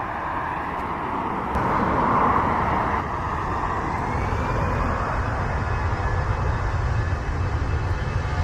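Jet engine noise from a Boeing 737-800's CFM56-7B turbofans, a steady rush with a faint whine that rises slowly in pitch about halfway through, over a fluctuating low rumble.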